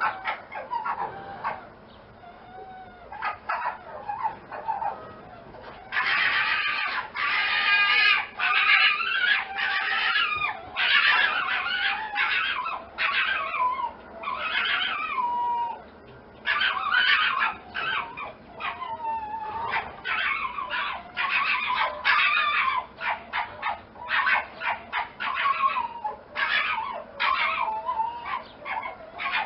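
Fox calling: long runs of rapid, high-pitched yips and chattering cries, some whining calls falling in pitch, with a quieter stretch early on and a short pause about two-thirds of the way through.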